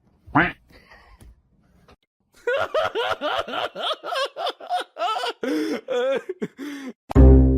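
A person laughing: one short high yelp, then a long run of quick, high-pitched bursts of laughter, several a second. Plucked-string orchestral music cuts in near the end.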